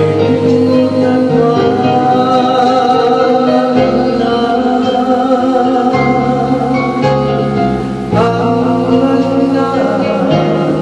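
Music: a woman singing a Filipino ballad into a microphone over instrumental accompaniment, her notes held and wavering.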